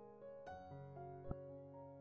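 Quiet, slow piano background music, single notes sounding one after another and ringing on over each other. One brief soft thump comes a little past halfway.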